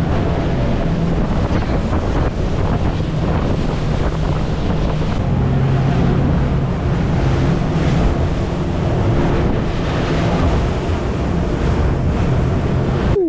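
Wind buffeting the microphone and water rushing, over the steady drone of a motorboat engine under way. It cuts off suddenly at the end.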